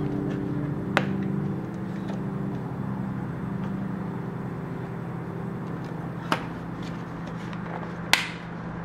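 Soft background music with held low notes, and a few sharp clicks: one about a second in, one past the middle, and one near the end.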